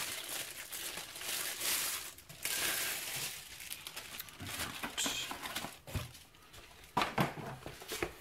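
Clear plastic wrapping crinkling as it is handled and pulled off, with a few sharp knocks near the end.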